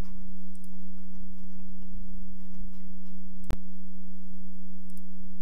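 A steady low hum, one constant tone, under a few faint computer-mouse clicks, with a single sharp click about three and a half seconds in.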